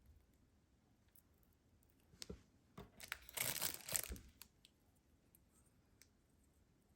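Packaging being torn open and crinkled: a few sharp handling clicks a little over two seconds in, then about a second of rustling, tearing noise.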